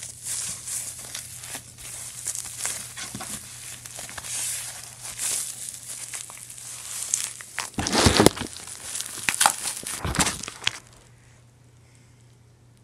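Bubble wrap and paper packaging crinkling and tearing as a package is unwrapped by hand. It gets louder twice near the end, then stops about two seconds before the end.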